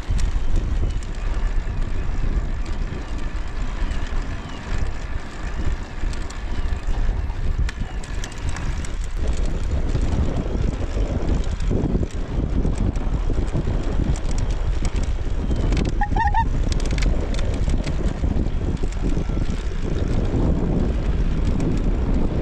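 Strong headwind buffeting the microphone of a camera on a moving recumbent e-trike: a heavy, gusting low rumble. A short high-pitched sound cuts in briefly about two-thirds through.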